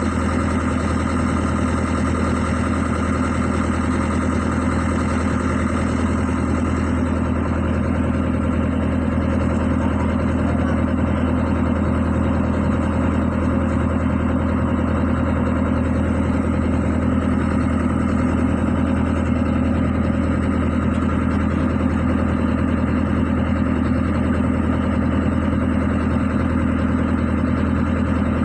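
An engine idling at a steady, unchanging speed.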